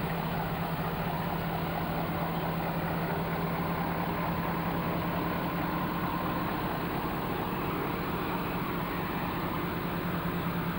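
Mobile truck crane's diesel engine running steadily.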